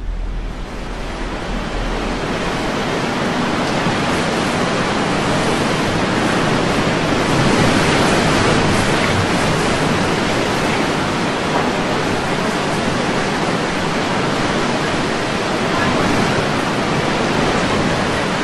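Hurricane-force wind blowing across the microphone: a loud, steady rush of noise that swells slightly about eight seconds in.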